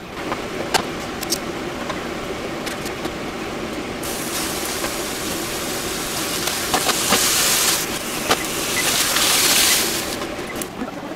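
Sous-vide-cooked sirloin steaks searing in a frying pan, sizzling loudly from about four seconds in, swelling twice and dying away near the end. Before the sizzle, a steady low noise with a few light clicks.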